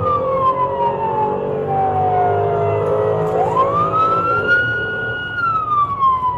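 Police car siren wailing, heard from inside the moving patrol car. The pitch falls slowly for about three seconds, sweeps quickly back up, holds briefly, then starts falling again near the end. Engine and road rumble run underneath.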